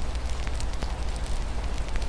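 Wood fire crackling in a fireplace, with a few sharp pops over a steady low rumble, mixed with a soft, even hiss of rain against a window.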